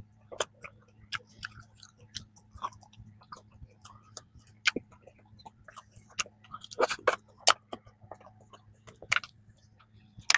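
Close-miked chewing of soft cream-filled bread: scattered wet mouth clicks and smacks, with a denser run of chewing about seven seconds in, over a faint steady low hum.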